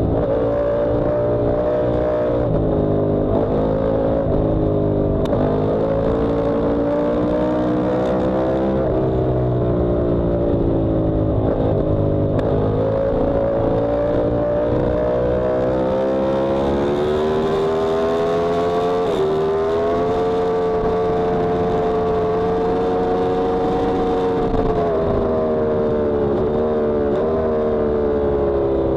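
Yamaha R1M's crossplane inline-four engine at full track pace, its pitch climbing and falling continuously. There is a long climb in the middle, a sudden drop about two-thirds through, and several quick drops near the end.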